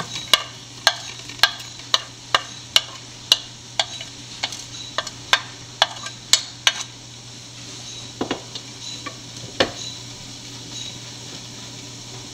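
Sliced onion sizzling in hot oil in a frying pan while a spatula stirs it, knocking sharply against the pan about twice a second. The knocks stop about seven seconds in, with two more after, and the sizzle runs on alone.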